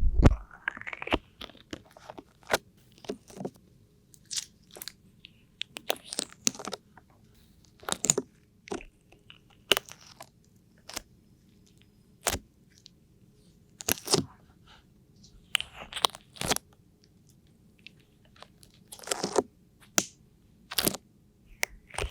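Irregular crisp crunches and clicks, roughly one every second or two, with quiet between them.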